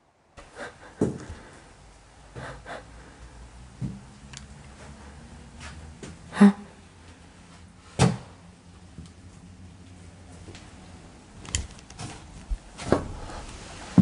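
Scattered single knocks and thumps of footsteps on wooden floorboards, a second or more apart over a low steady hum, coming closer together near the end.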